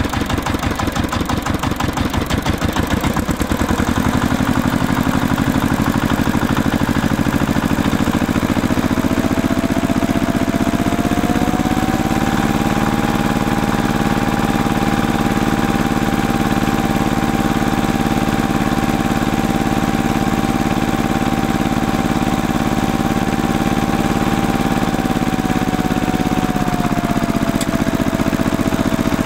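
Tractor engine sound: a fast chugging idle that rises in pitch about ten seconds in, holds steady at higher revs, then drops back near the end.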